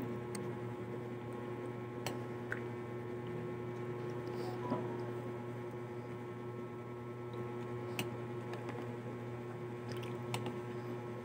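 A steady electrical hum, with faint squelching and a few light clicks from a spoon stirring gelatin cubes and fruit in a creamy dressing in a plastic tub.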